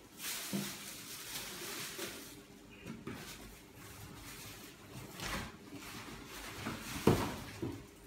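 Plastic film rustling as a plastic-wrapped wall panel is handled and laid down on a tiled floor, followed by a few scattered knocks. The loudest is a sharp thump about seven seconds in.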